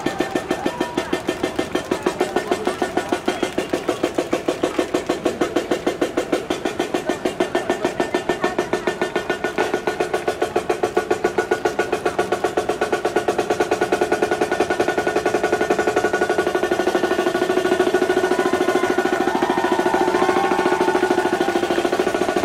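Solo Yamaha marching snare drum played with sticks in a fast, even stick pattern. The strokes grow denser toward a roll in the second half.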